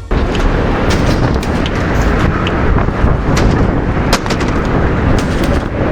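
Strong wind buffeting the microphone: a loud, rough low rumble with scattered sharp clicks and knocks.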